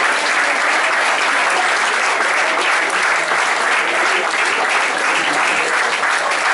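A roomful of people applauding, steady and dense clapping throughout.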